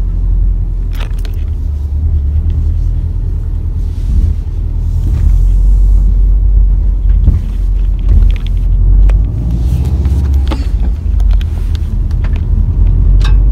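Steady low rumble of a car driving, heard from inside the cabin, with a few short knocks.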